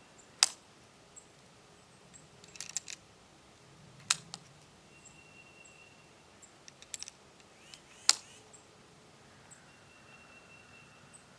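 5.7x28mm cartridges being pressed by hand into a pistol magazine: sharp metallic clicks every few seconds, the loudest about half a second, four seconds and eight seconds in, with small clusters of lighter clicks and rattles between.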